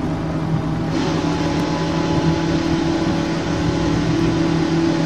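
Boat motor running steadily with an even low hum.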